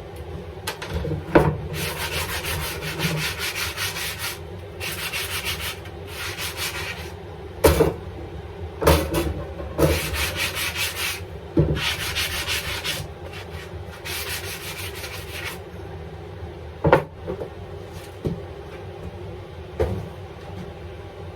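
Sandpaper rubbed on wooden pieces: several passes of a second or two each, with a few sharp knocks of the wood being handled between them, then a quieter stretch near the end with a couple more knocks.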